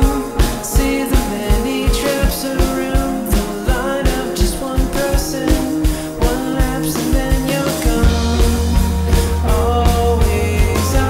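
Rock music soundtrack with a steady drum beat; a deep sustained bass comes in about eight seconds in.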